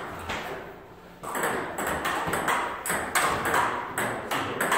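Table tennis ball ticking back and forth off paddles and table in a rally: a quick string of sharp pings that starts about a second in, after a short lull.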